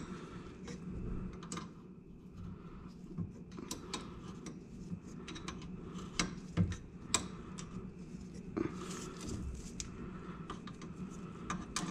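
Quiet, scattered small metallic clicks and light taps as the differential cooler line fitting on a 2021 Mustang Mach 1's rear differential is threaded back in by hand, with a few sharper clicks.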